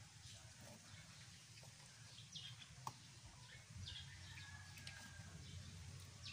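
Near-quiet rural ambience: a faint low hum with a few short, faint bird chirps and a single click about three seconds in.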